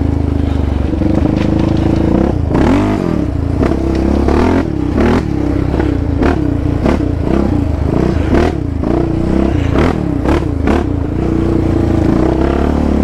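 Yamaha Raptor 700 sport quad's single-cylinder engine running under the rider, revs dipping and climbing with throttle changes, with repeated sharp knocks and clatter as it crosses a rough dirt and rock trail.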